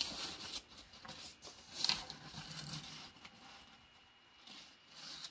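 Faint, irregular rustling and scratching of tissue paper being adjusted by hand inside a stuffing balloon, a little louder at the start and again about two seconds in.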